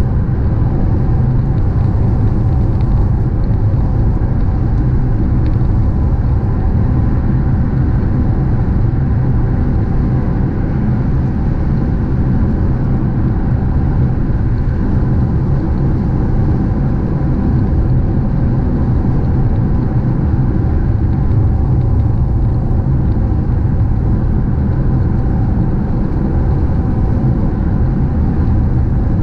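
Steady low rumble of a car cruising at highway speed, heard from inside the cabin: tyre and road noise mixed with engine drone, unchanging throughout.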